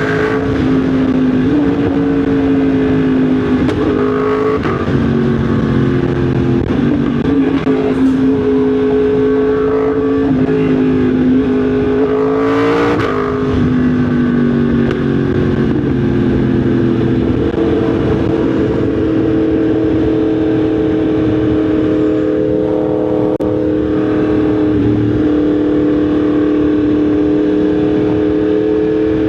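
Yamaha MT-10 SP's crossplane inline-four engine running on the road, its note rising and falling with throttle and gear changes, then holding steady at a cruise for the second half. A brief rushing whoosh comes about 13 seconds in.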